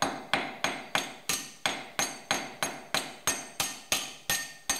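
Ball-peen hammer striking a steel rivet in quick, even blows, about three a second, each with a short bright metallic ring. The ball end is peening the rivet head over to mushroom it, locking a new tooth onto a sickle bar blade resting on a vise anvil.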